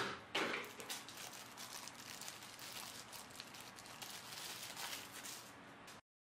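Thin clear plastic bag crinkling and rustling as hands unwrap a car charger from it: faint, with a couple of louder crackles at the start, and it cuts off suddenly near the end.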